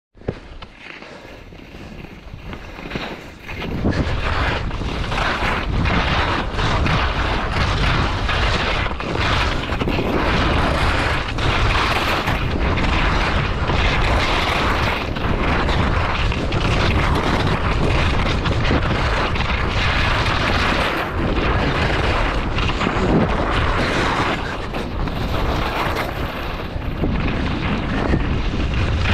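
Wind rushing over the microphone of a camera worn by a downhill skier, mixed with skis scraping over the snow. Quieter for the first few seconds, then loud and steady from about four seconds in.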